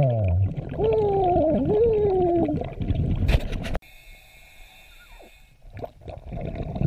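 A diver's muffled voice underwater, sounding through the scuba regulator in whale-like rising and falling tones. A sharp knock follows, then the sound drops away abruptly to a faint whine before dense underwater noise returns near the end.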